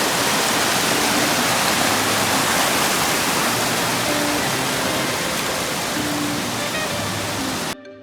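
A waterfall's steady, loud rushing, a dense even roar of falling water, broken off abruptly for a moment near the end.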